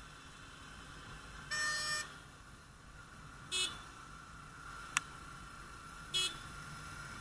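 Vehicle horn honking in traffic: one half-second toot, then two short toots, with a single sharp click between the last two, over a faint steady riding hum.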